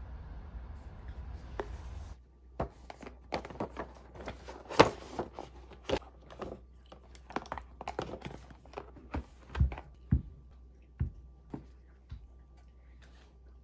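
Irregular sharp clicks, taps and rustles of small objects being handled in a quiet room. A steady low rumble stops suddenly about two seconds in.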